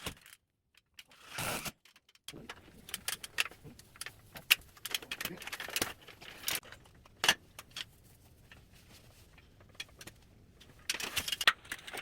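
Irregular light clinks and knocks, like metal parts and tools being handled. A brief rustle comes about a second and a half in, a busy run of clicks follows, and after a quieter stretch there is another burst of clinks near the end.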